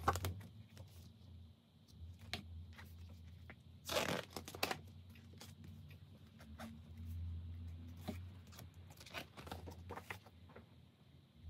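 Paper pages of a spiral-bound desk calendar being flipped over, in short dry rustles and flaps with the loudest turn about four seconds in, over a low steady hum.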